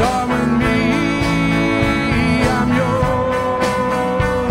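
Gospel song played by a band, with a long note held steady over the last second and a half.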